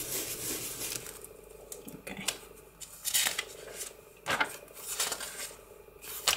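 An ink blending tool brushing over paper for about a second, then the paper pages of a handmade journal being turned and handled, giving several short rustles and light taps.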